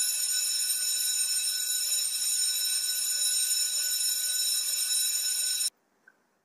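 Electric school bell ringing continuously, one steady metallic ring that cuts off suddenly near the end.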